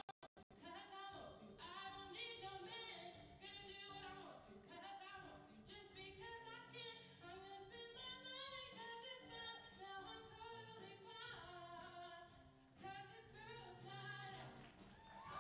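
Female show choir singing in harmony, several voices moving together in chords. The audio cuts in and out briefly at the very start.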